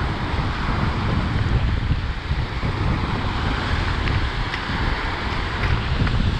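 Strong wind buffeting the microphone, over waves washing onto a lake beach.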